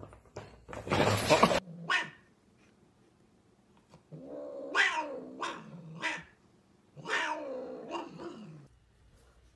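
A paper shopping bag rustling loudly as a cat pushes into it, cutting off about a second and a half in. Then a cat yowls twice, two long wavering caterwauls that slide down in pitch at the end.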